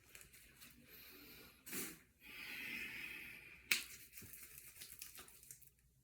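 Faint wet rubbing and scrubbing of lather being worked by hand, with one sharp click a little past the middle.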